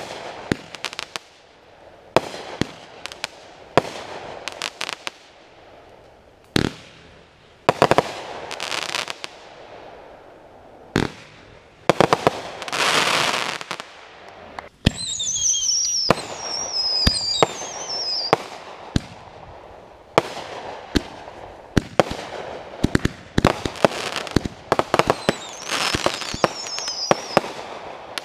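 Aerial firework shells bursting in a long string of sharp bangs. About halfway through there is a hissing burst, followed by high whistles that fall in pitch; more falling whistles come near the end.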